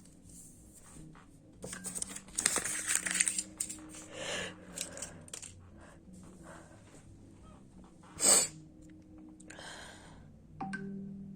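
A person sneezing once, short and sharp, about eight seconds in, after a stretch of clicking and rustling noises.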